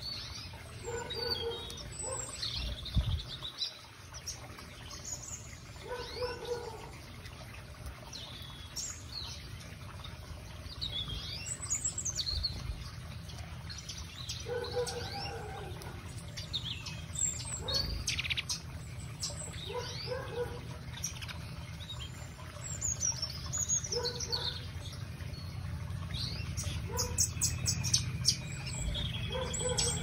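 A mixed flock of small aviary finches and canaries chirping and calling: many short, high chirps throughout, a lower call that repeats every few seconds, and a rapid trill near the end, over a steady low hum.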